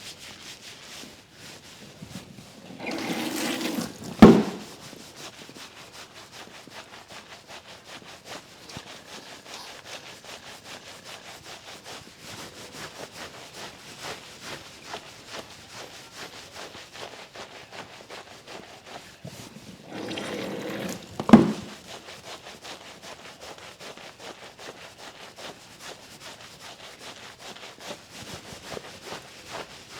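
Hands rubbing and scratching a wet, lathered scalp during a spa hair wash, a steady soft rustle of many small ticks. Twice there is a louder rush of about a second that ends in a sharp knock.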